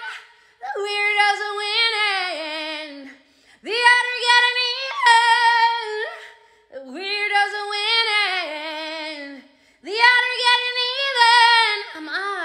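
A woman singing unaccompanied in a high voice: four phrases of about three seconds each with short breaths between, each one falling in pitch at its end.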